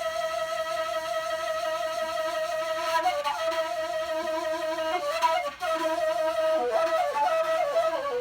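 Kaval, the end-blown shepherd's flute, playing an improvised solo: a long held note, then quick ornamented turns and trills about three seconds in and again through the second half, with a brief break for breath partway through.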